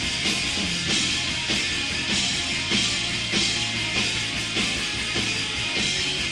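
Rock band playing live: drum kit keeping a steady beat, with a hit about every half to two-thirds of a second, under electric guitar.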